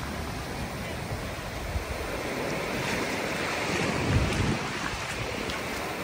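Low ocean surf breaking and washing up a sandy beach, the wash swelling and hissing about halfway through, with wind gusting on the microphone.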